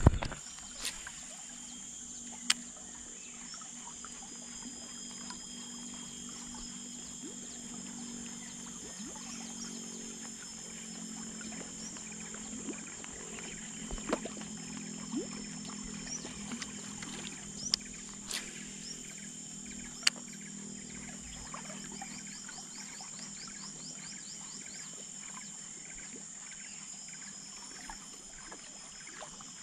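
Steady drone of insects in riverside forest, broken by a few sharp clicks and taps, with a short rapid ticking trill about three quarters of the way through.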